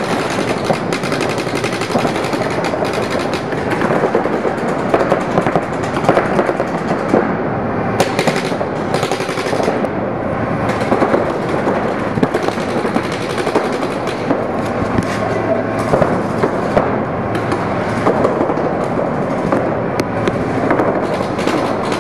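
Several paintball markers firing rapid strings of shots at once, a dense, continuous popping.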